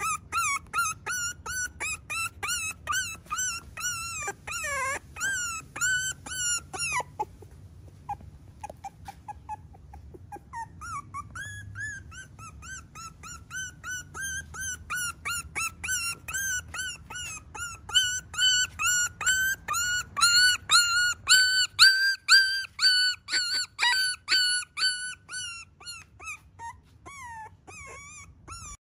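Very young Miniature Schnauzer puppy whimpering and squeaking in a long run of short high cries, about two a second. The cries pause briefly about eight seconds in, grow loudest about two-thirds of the way through, then thin out near the end.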